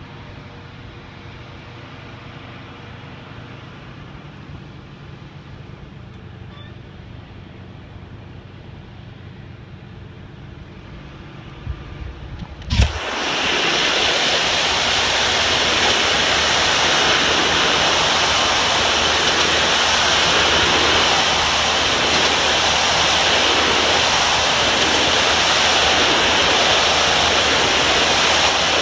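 A pressure washer's steady low hum, then a sharp click about halfway through. After the click comes a loud, steady hiss of the high-pressure water jet blasting grime off a concrete wall.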